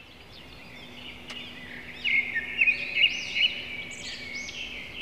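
Several birds chirping and twittering together in quick overlapping whistles, with a run of sharp louder chirps between about two and three and a half seconds in. A faint steady hum lies under them.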